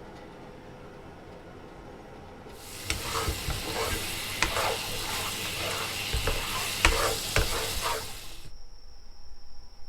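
Food sizzling in a frying pan with sharp clicks of a utensil stirring it. It starts about two and a half seconds in and cuts off abruptly near the end, leaving a thin steady high tone.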